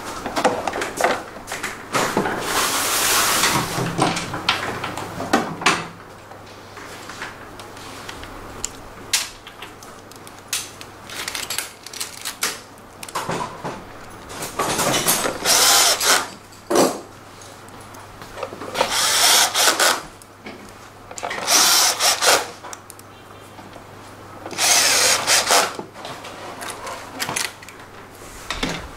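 Cordless drill-driver running in about five short bursts, each lasting one to a couple of seconds, driving in the bolts of a scooter's drive-belt (CVT) cover, with small tool knocks in between.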